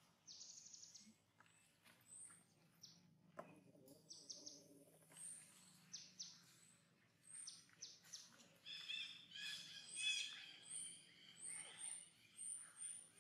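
Wild birds chirping faintly: a short, very high chirp repeats about once a second, with quick runs of higher notes, and a louder burst of calls about nine to ten seconds in.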